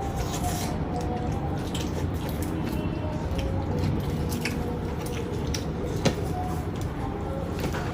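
Someone eating chicken and noodles by hand: chewing with many short wet mouth clicks and smacks over a steady low hum, one sharper click about six seconds in.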